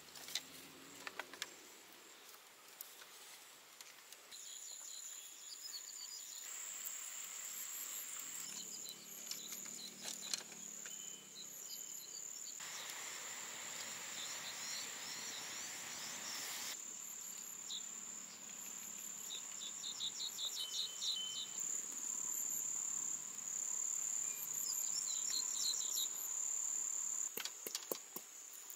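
Insects trilling in a steady, high-pitched drone, with a few light clicks near the start and near the end.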